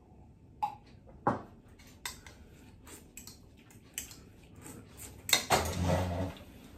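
A metal spoon clinking in a ceramic bowl and a drinking glass being set down on a table: a few separate clinks. Near the end comes a longer scraping shuffle as a person gets up from the table.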